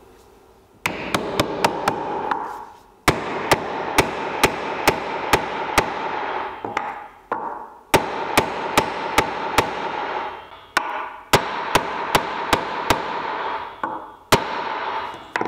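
Steel hammer striking a wooden block laid over a glued walnut cross inlay, driving it down into its routed recess. Sharp blows come about two to three a second in four or five runs with short pauses between.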